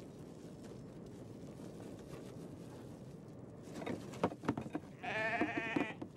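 A young calf bleats once, a wavering call lasting under a second near the end. Just before it come several knocks and clatters as a plastic calf-feeding bucket is handled against the metal pen rails.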